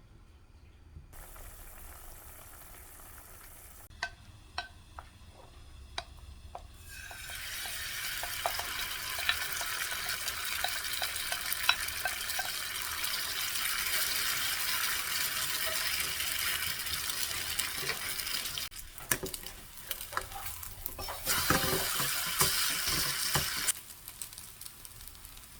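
Squid and pork belly stir-fry sizzling on a hot iron griddle plate as it is stirred, with a few utensil clicks before the sizzle starts about a third of the way in. The sizzle breaks off briefly, returns, then stops near the end.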